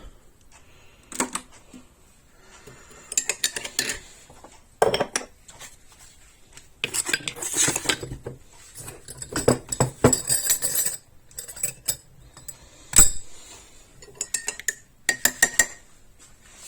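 Cups, saucers and spoons being handled, clinking and clattering in irregular bursts, with a sharp knock about 13 seconds in.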